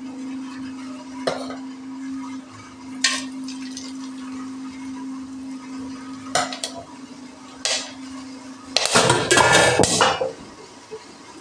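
Whole spices dropped into an aluminium pot of water: single short clicks and splashes four times, then a longer, louder rattling splash of several at once about nine seconds in. A steady low hum runs underneath and stops just as that last batch goes in.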